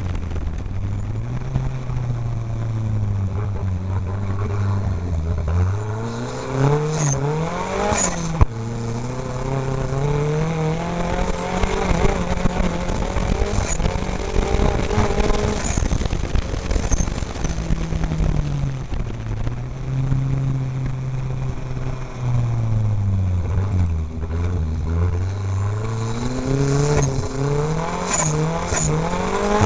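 Offroad race car's engine heard from inside the cab, its revs rising and falling again and again as it is driven hard around the dirt track. A single sharp knock comes about eight seconds in.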